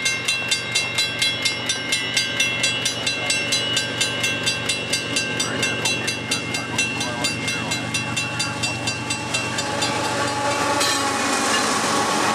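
Level-crossing warning bell ringing steadily, about two to three strokes a second, over the low rumble of an approaching freight train. Near the end the lead diesel locomotive, a CP ES44AC, arrives at the crossing and its noise swells sharply.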